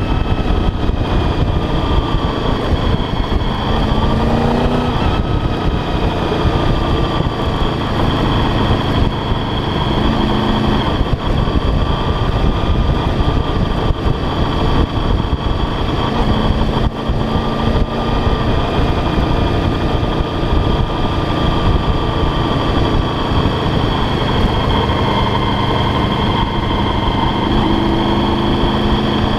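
Motorcycle engine running on the move, heard through heavy wind rush on a bike-mounted camera's microphone. Its note rises and falls a few times.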